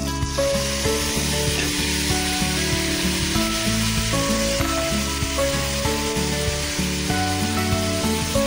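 Onion, garlic, chillies and diced tomato sizzling as they fry in oil in a stainless steel pot, stirred with a spatula. A steady hiss sets in right at the start. Background music plays underneath.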